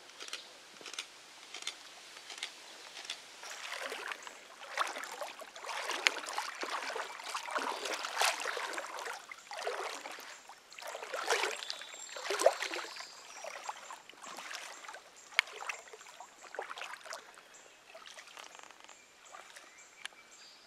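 River water sloshing and splashing around people wading waist-deep, in irregular surges with sharp splashy crackles, loudest in the middle and dying down near the end.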